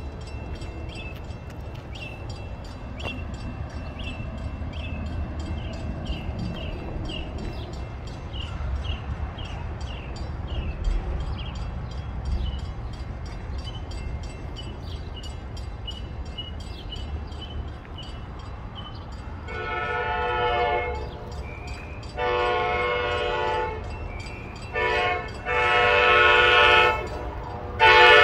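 Train horn of an approaching CTrail train, sounded about two-thirds of the way in as a chord of several notes: two long blasts, a short one, then more long blasts, the grade-crossing signal pattern. Before it there is only a low steady rumble with a faint tick about twice a second.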